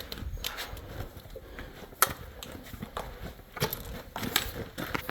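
Footsteps scuffing and crunching on sand and grit over rock, an irregular run of short steps with one sharper click about two seconds in.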